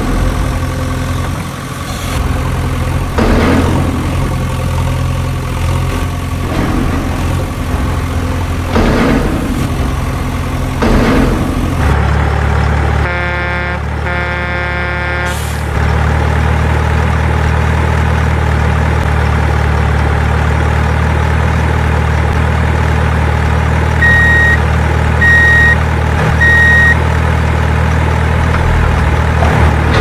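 Heavy truck diesel engine sound effect running steadily, dubbed over toy vehicles that have no engines. About halfway through there are two horn blasts, and later three short reversing beeps about a second apart.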